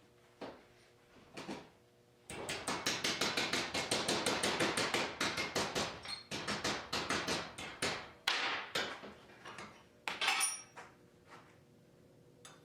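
Hammer striking metal in a fast, even run of blows, about six or seven a second, as steel is shaped on the bench. The blows then slow to scattered knocks and a brief scrape.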